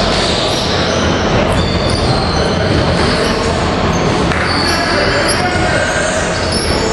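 Steady basketball-game din in a gym: players' voices, with a ball bouncing on the hardwood court.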